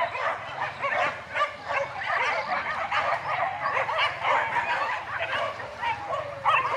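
A large pack of hunting dogs yelping and barking all at once, many high yips overlapping without a break.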